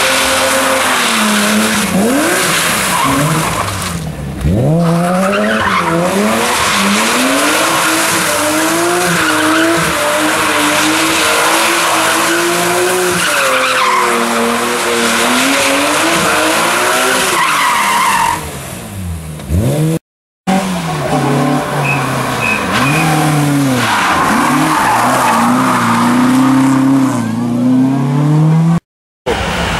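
Historic rally car engines at full throttle, pitch climbing and dropping again and again through gear changes as the cars pass, with tyre squeal and skidding on the road surface. The sound cuts out completely twice, briefly, about two-thirds of the way in and near the end.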